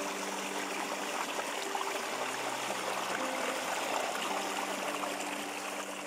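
Shallow rocky stream running and trickling over stones and leaf debris, a steady rushing babble of water.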